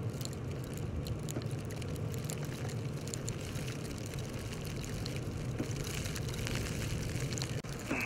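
Steady low rumble under an even hiss, with scattered faint ticks: outdoor background noise in a snowstorm.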